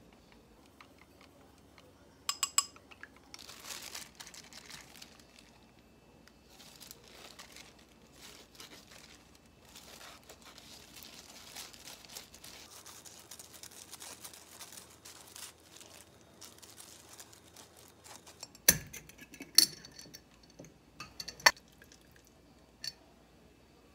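Soft rustling and crinkling of a plastic-gloved hand rubbing beaten egg onto a slice of bread, with a few clinks about two seconds in. Near the end, several sharp clinks of a wooden utensil against a glass jar.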